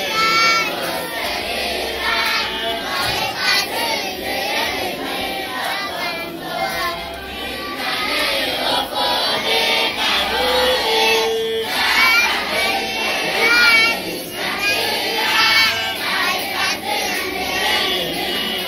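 A large group of schoolchildren singing together, many voices overlapping.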